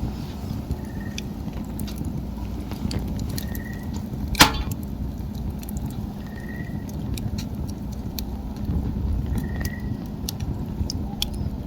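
Wood fire crackling, with scattered small snaps over a low steady rumble and one loud sharp pop a little over four seconds in.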